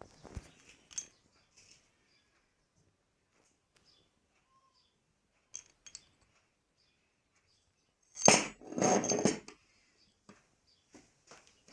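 Scattered light clicks and knocks of parts and tools being handled on a workbench, with a louder burst of clattering about eight seconds in.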